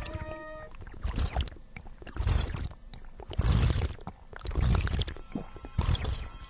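A man gulping water, about five swallows roughly a second apart.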